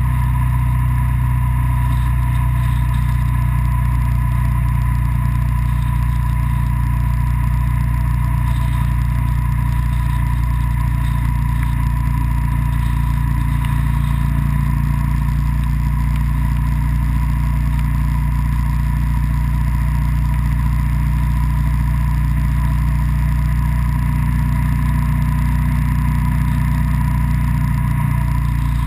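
A road vehicle's engine and road noise at steady cruising speed: one unbroken drone with no change in pitch or loudness.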